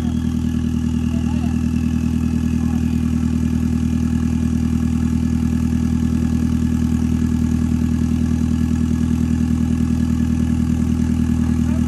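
Off-road 4x4 engine idling steadily with an even, fast throb.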